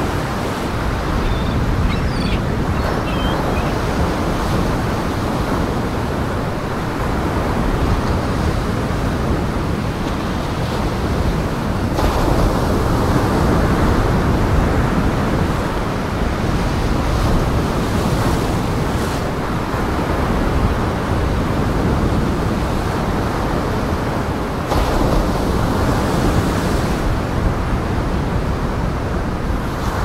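Heavy surf in strong wind: a continuous rush of breaking waves with wind over it.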